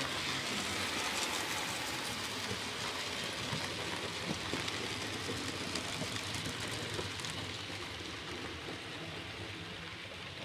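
A model railway steam locomotive and its train of coaches running past on the layout's track: a steady, dense rattle of small wheels on the rails, easing a little near the end as the train moves away.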